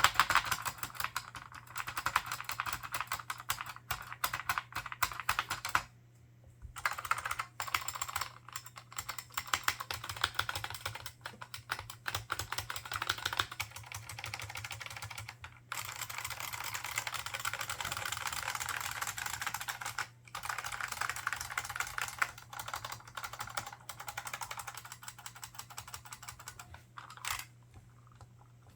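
Fast typing on an IBM 4683 point-of-sale keyboard's membrane buckling spring switches with PBT keycaps: a dense run of key clicks broken by a few short pauses, thinning out and stopping near the end.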